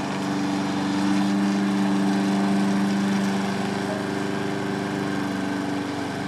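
Lawn mower engine running steadily, getting louder about a second in and easing off again after about four seconds.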